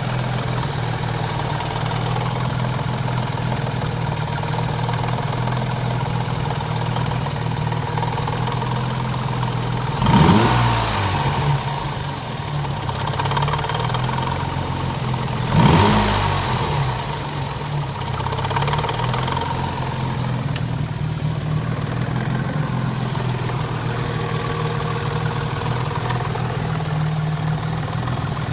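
Ford Cosworth 'BOB' 2.9 V6 engine idling steadily with a knock, revved briefly twice, about ten and about fifteen seconds in, each time rising and dropping back to idle.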